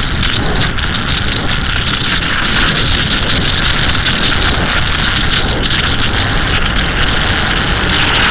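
Steady rush of wind over the microphone on a Suzuki SV1000S motorcycle cruising at highway speed, with the bike's V-twin engine and road noise underneath.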